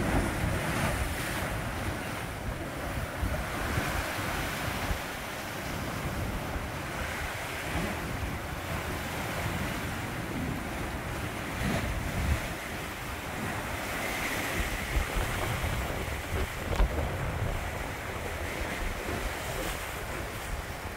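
Sea waves surging and washing against a rocky shore, with wind buffeting the microphone.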